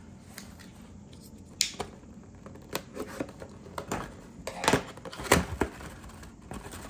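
Thin cardboard gift box being handled and opened by hand: scattered sharp clicks and scrapes of card as the flaps are pulled open, the loudest two about five seconds in.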